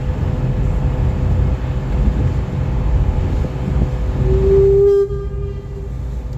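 A horn sounds once, a single loud steady note held for about a second, a little over four seconds in, over the steady low rumble of a tour boat's engine and wind on the water.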